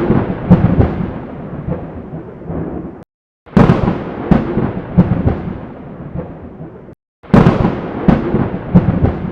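Loud booming thuds with rumbling tails, in three stretches of about three seconds each, every stretch opening with a sharp boom and fading, cut apart by two brief silences.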